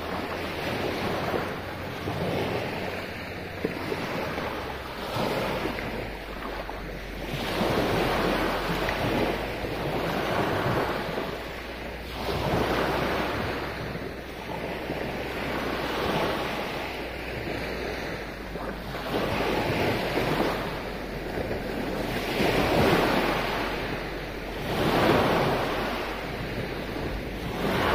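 Small waves breaking and washing up a sandy beach on a calm sea; the rush of surf swells and fades every two to three seconds.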